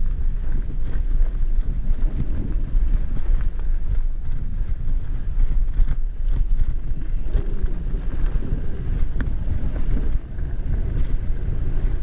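Wind buffeting the microphone, a steady low rumble, with a few faint clicks mixed in.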